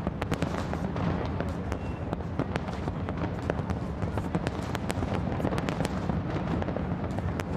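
Aerial fireworks display bursting: many sharp cracks and pops in quick, irregular succession over a steady low rumble.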